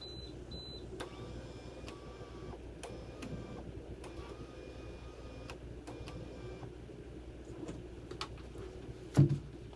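Small electric motor whining in short spells of a second or two, with scattered metallic clicks of parts and tools and one loud knock about nine seconds in.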